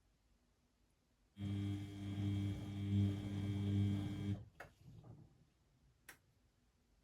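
Beko WML 71433 NP washing machine: a steady electric hum with a strong buzz starts abruptly about a second in, runs about three seconds and cuts off, followed by a few faint clicks.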